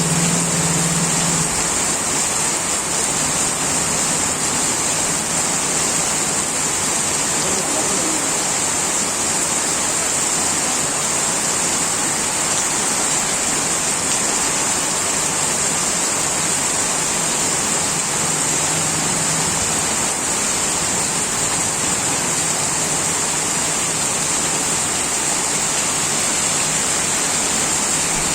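Heavy rain pouring at night, a steady, even hiss that does not let up.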